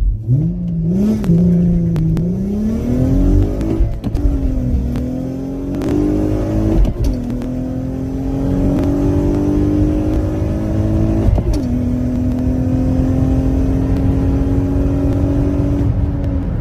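Acura TL SH-AWD's 3.7-litre V6 pulling hard through the gears. The revs climb and drop sharply at three upshifts, about four, seven and eleven seconds in, then hold steady before easing off near the end.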